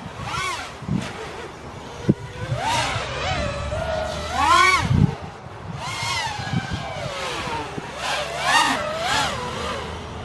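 FPV racing quadcopter's brushless motors and propellers whining in flight. The pitch swoops up and down every second or two as the throttle is punched and eased. There is a sharp click about two seconds in.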